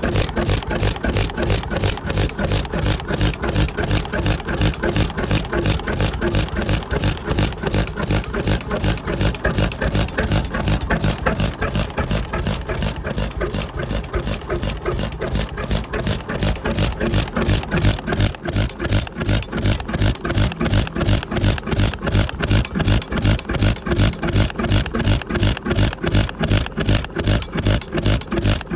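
Two-stroke hot-bulb (semi-diesel) stationary engine running, each firing stroke a sharp knock in a steady beat of several a second.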